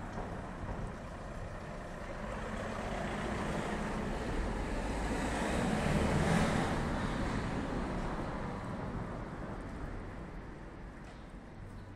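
A road vehicle passing by, its noise swelling to its loudest about six seconds in and then fading away.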